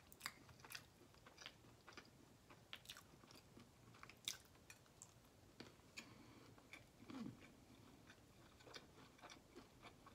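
A person chewing soft food with her mouth closed: faint, irregular small wet mouth clicks.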